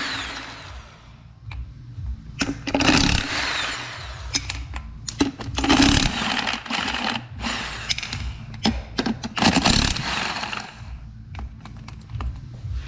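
A power tool run in about five short bursts of a second or less, with clicks and metal knocks in between, while the wheel hardware is worked off an ATV's rear axle.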